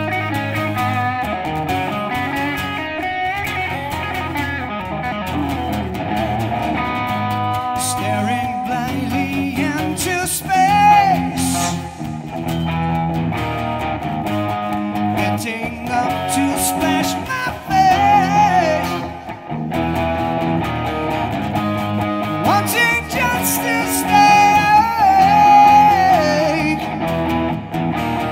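Live guitar music: an electric guitar playing lead lines over a strummed acoustic guitar.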